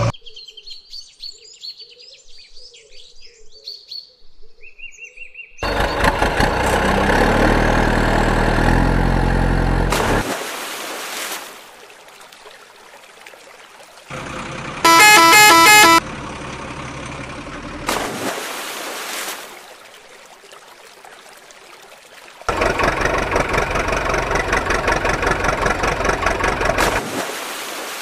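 Faint bird chirps for the first few seconds, then a truck engine revving with its pitch rising in steps. About halfway through comes a loud, pulsing truck horn, and near the end another long stretch of loud engine-like noise.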